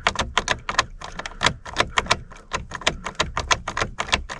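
Key being jiggled back and forth in a worn ignition lock cylinder on a 2013 GMC truck, rapid clicking and rattling, several clicks a second. The worn tumblers keep the key from turning.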